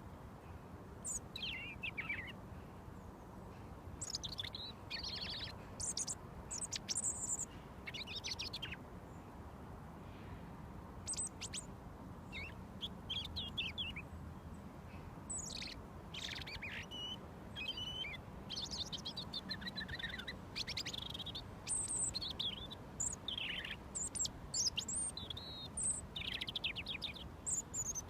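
Robin song: short, high, twittering phrases that come every second or two, over a faint steady background hiss.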